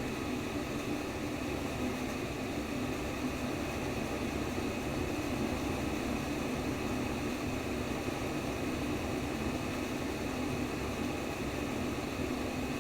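Steady white noise for baby sleep: an even rushing sound, fuller in the lower range, that holds one level without change.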